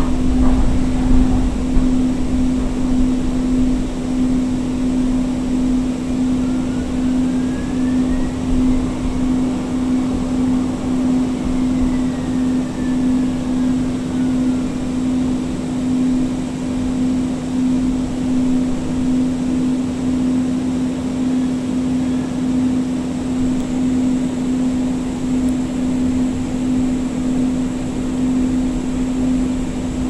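Cabin of a Siemens S200 light rail car in motion: a steady low hum throughout, with a faint whine from its IGBT-VVVF traction drive that rises and then falls in pitch in the middle.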